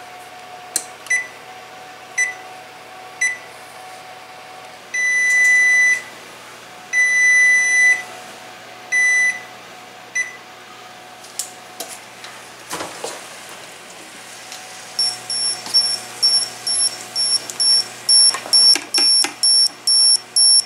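Electric range control panel beeping: three short beeps about a second apart as the timer keys are pressed, then three long beeps. From about 15 seconds in, a digital probe thermometer's higher-pitched alarm beeps rapidly, faster toward the end, signalling that the food has reached its set temperature.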